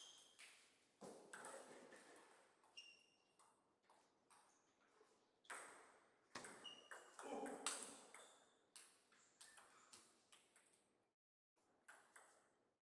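Faint table tennis play: the ball clicks and pings off the paddles and the table in quick exchanges, over two short rallies with pauses between them.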